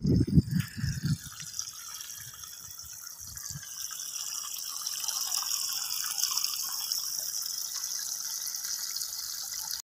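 Water hissing out of a drip-irrigation line at the base of a young citrus tree, a steady high hiss that grows a little louder about four seconds in. A few low thumps come in the first second.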